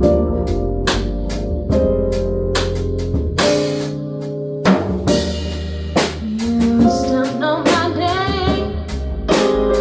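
Live small-band music: drum kit with snare and rim hits and a cymbal wash, sustained bass and keyboard chords, and a singer holding wavering notes in the second half.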